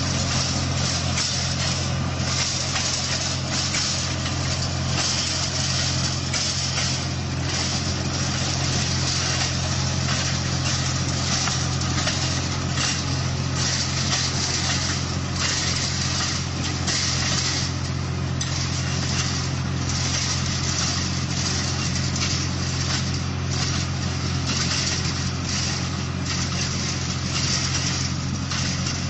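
Skid steer loader's engine running at a steady speed while the machine drives and turns, a constant low engine hum with a hiss of machine noise above it.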